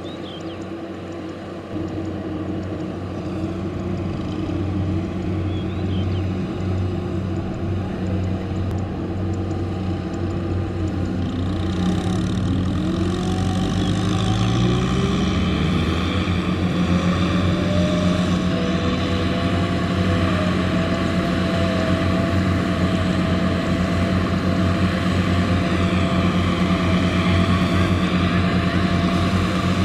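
Diesel engines of a combine harvester and a tractor running, straining to tow the mud-stuck tractor free. About halfway through, one engine revs up, its pitch climbing over a few seconds and then holding high and steady.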